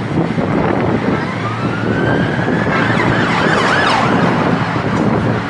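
An emergency vehicle's siren sounding over steady wind and road noise on the microphone: a long rising wail starts about a second in, followed by a run of quick up-and-down sweeps around the middle.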